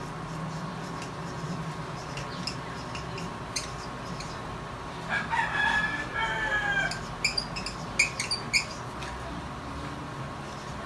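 A marker writing on a laminated chart, with a run of short squeaky strokes in the second half, the loudest sounds here. About halfway through a rooster crows once, a drawn-out call of about two seconds.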